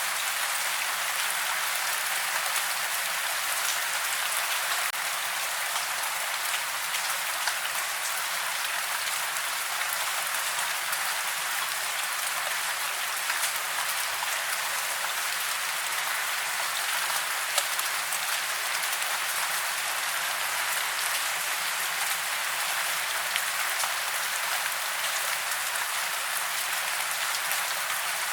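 Steady rain: an even hiss with little low end and scattered sharper drop ticks.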